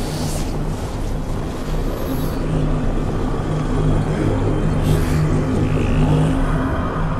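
Action-film soundtrack mix: a dense low rumble under a pulsing low drone, with a brief whoosh about five seconds in.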